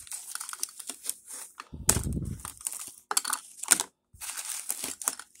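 Blue painter's tape crinkling and rustling as it is crumpled and pulled away, with Rockler interlock plastic letter templates clicking as they are lifted off the routed board. There is a brief low rumble about two seconds in.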